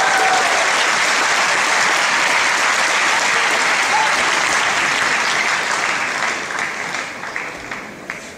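Crowd applauding after a point is won. The applause is loud and steady at first, then dies away over the last two seconds, with a few lone claps near the end.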